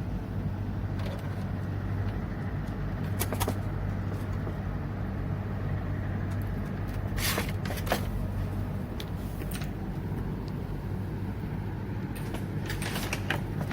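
Keyboard tray being handled: scattered knocks and clatters, two close together about seven seconds in and a cluster near the end, over a steady low hum.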